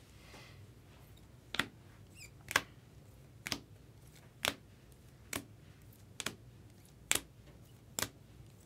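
Bowman Chrome trading cards being flipped one at a time off a hand-held stack, each card giving a short, crisp click, about one a second, eight in all.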